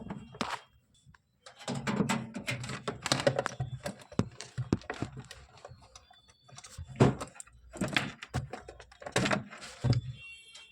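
Irregular clicks, knocks and thumps of hard objects being handled, with a brief pause about a second in.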